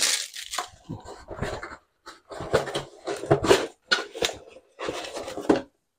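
Plastic packaging bag crinkling and a cardboard box being closed and handled: a run of irregular rustles and scrapes, pausing briefly about two seconds in.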